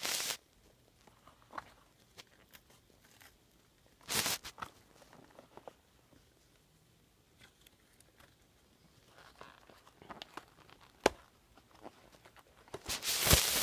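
Scattered rustles and crinkles of earbud packaging being handled, with a sharp click about eleven seconds in and a longer rustle near the end.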